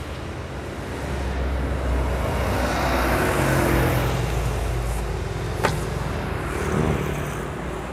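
Road traffic passing on the street: a vehicle's low rumble swells and then fades over several seconds, with a single sharp click a little past the middle.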